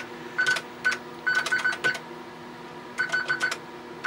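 Keys being typed on a TRS-80 Model 16B keyboard. Each keystroke gives a short electronic key-click beep. The keystrokes come in two quick runs with a pause of about a second between them. The key click is still switched on because the CLICK OFF command has not yet been entered.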